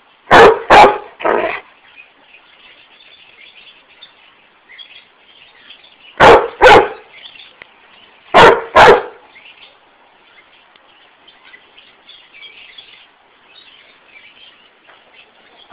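A dog barking in play over a soccer ball, in short clusters: three barks right at the start, then a pair about six seconds in and another pair about eight and a half seconds in.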